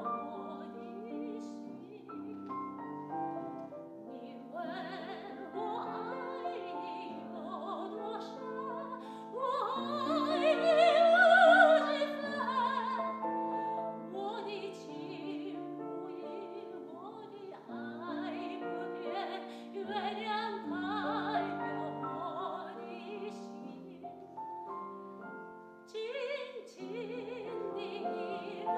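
Female classical singer performing an art song in operatic style with vibrato, accompanied by a grand piano. The voice swells to its loudest and highest about ten to twelve seconds in, then settles back.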